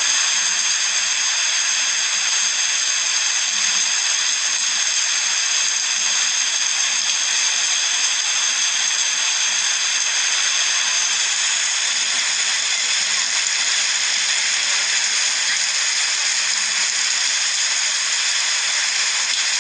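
Heavy rain mixed with hail pouring down: a loud, steady hiss with no separate impacts standing out.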